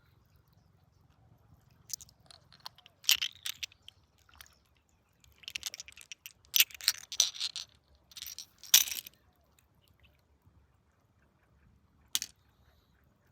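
Crunching, scraping and clicking of stones and gravel being handled, in bursts between about two and nine seconds in, with one more knock near the end.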